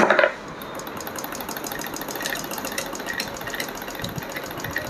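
Old Pfaff 30 sewing machine, freshly serviced, being turned by its hand crank. The mechanism gives a steady, fast clatter of fine ticks, after a short, loud clunk at the very start.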